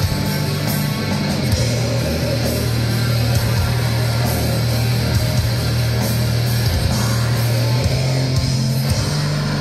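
Live black metal band playing at full volume: distorted guitars and drums in a dense wall of sound over long-held low bass notes that shift pitch a few times, heard from within the audience.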